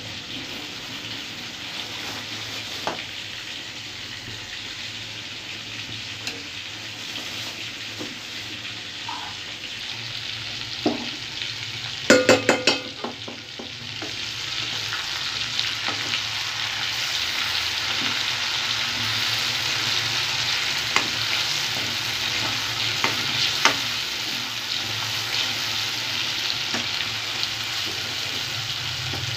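Chicken leg pieces sizzling steadily as they fry in hot oil in a kadai, with a spatula scraping and knocking against the pan. There is a short burst of clatter about twelve seconds in, and the sizzle grows louder in the second half.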